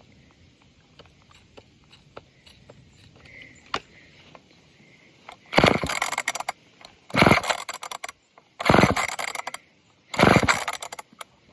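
Four pulls on the recoil starter of an old two-stroke chainsaw, about one and a half seconds apart. Each pull is a loud, roughly second-long burst of the engine turning over without starting, its carburetor primed with fuel sprayed into the throat. Faint clicks of handling come before the first pull.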